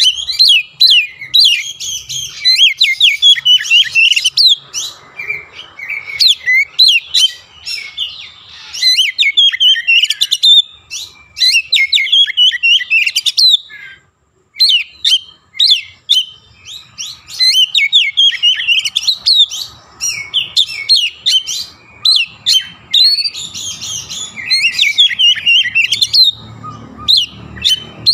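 Oriental magpie-robin singing loudly and almost without pause, a rapid string of short sweeping whistles and chirps, its song mixed with imitations of Javan myna calls. The song breaks off briefly about halfway through.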